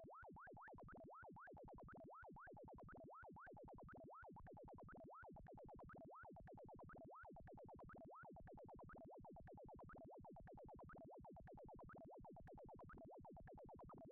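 Synthesised sound effect generated in Pure Data: quick rising pitch sweeps, several a second, repeating in runs with short gaps between them, like a chirping zap.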